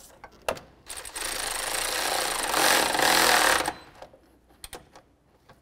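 Cordless power driver with a 10 mm socket running for about three seconds, driving a radiator fan shroud mounting bolt down until it is tight. A few light clicks of the tool and socket come before and after.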